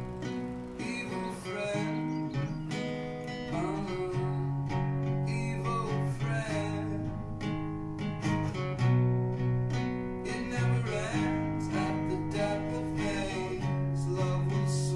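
Background music: an acoustic guitar playing plucked and strummed notes over low, held bass notes.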